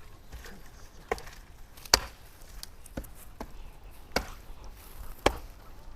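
Five sharp chopping strikes, about one a second, as of a blade or tool hitting something solid.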